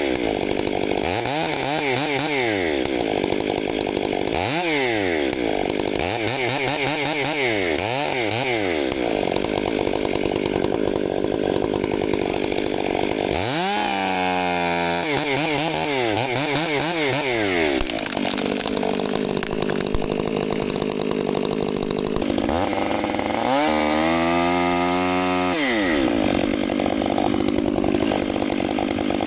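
Chainsaw engine working through a cut, its pitch repeatedly rising and falling with the throttle and load, with stretches of steady running in between.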